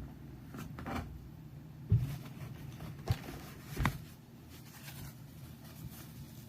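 Three short knocks or thumps, about two, three and four seconds in, the first the loudest, over a low steady hum.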